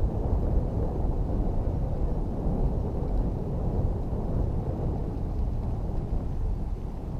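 Wind buffeting the microphone of a camera on a bicycle riding along a paved trail: a steady, gusty low rumble with no engine tone.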